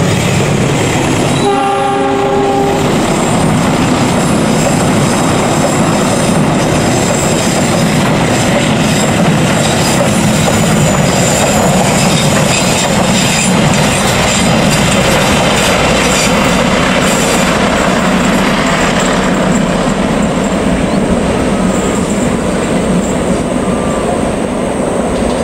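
Argo Wilis passenger train passing close by: a short horn blast about two seconds in, then the steady rumble of the carriages rolling past, with the wheels clacking over the rail joints most strongly in the middle.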